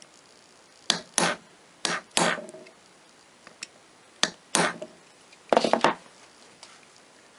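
Steel pin punch and M16A1 receiver parts tapping and clicking against each other as they are handled: a series of sharp metallic taps at irregular intervals, with a quick cluster about six seconds in.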